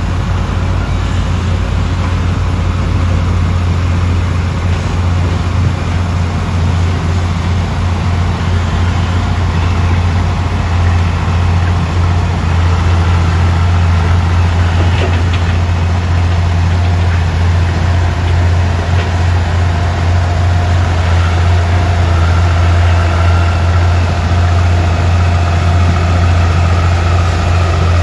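Heavy diesel earthmoving engine running steadily with a deep, even hum, with a faint higher whine in the second half.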